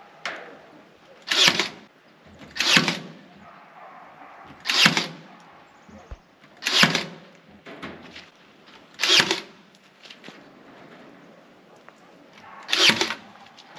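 Cordless staple gun firing staples through hardware cloth into wooden framing: six sharp shots, one every two seconds or so.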